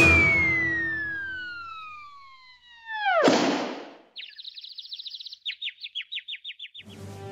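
Cartoon falling whistle, one tone gliding steadily down in pitch for nearly three seconds and ending in a loud crash of impact about three seconds in. From about four seconds in comes a run of quick high chirps, spacing out toward the end.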